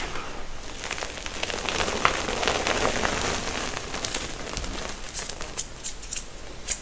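Hands crushing and squeezing a pile of soft reformed gym chalk into powder: a dense soft crunching full of small crackles, with loose chalk dust falling. It thins to a few sharper separate crackles in the last couple of seconds.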